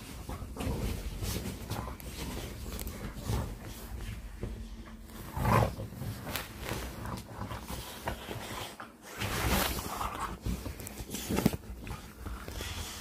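Two bully-type American bulldogs play-fighting, growling with rustling of the bedding; the growling comes in uneven surges, loudest about halfway through and again near the end.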